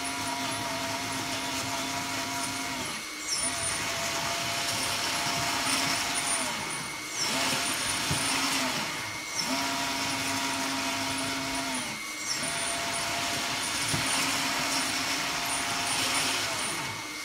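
Lesu SK500 LC RC excavator's track drive motor and final-drive gears turning the track in five runs of a few seconds each, with brief stops between them. It is a steady whine with a hiss on top. The drive is being test-run after the final drive was rebuilt and greased, and it seems to be working well.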